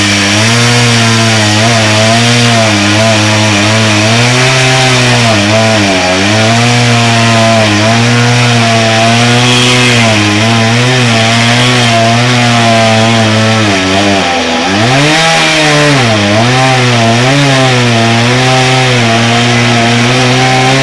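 Chainsaw cutting into scrap lumber, running continuously, its pitch sagging and recovering again and again as the chain loads up in the wood, with the deepest dip about two-thirds of the way through.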